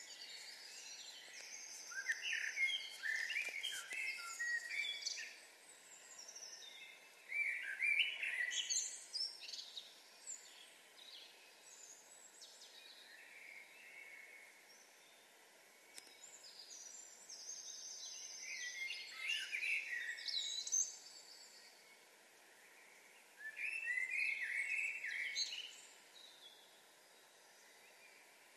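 Early-morning birdsong: songbirds singing in bursts of quick, varied phrases a few seconds long, with short quieter gaps between them, over a faint steady background hiss.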